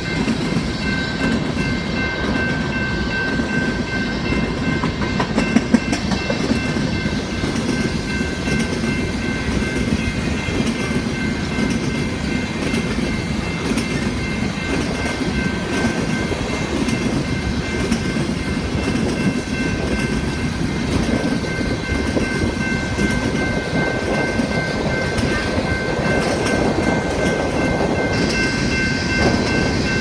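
Empty coal hopper cars rolling past: a steady rumble of steel wheels on rail with the clickety-clack of wheels over rail joints, a few steady high ringing tones running through it, and a couple of sharp clanks about five to six seconds in.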